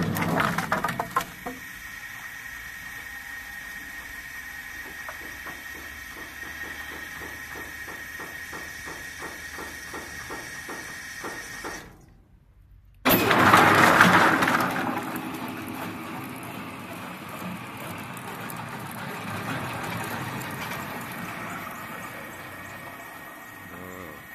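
Rotary log debarker running, its rotor tumbling and beating thin logs in the trough. Loud knocking and clattering of wood in the first second and a half, then a steady motor hum with a regular beat of about three knocks a second. The sound drops out for about a second near the middle, then comes back with a loud burst of clattering that settles into steady running.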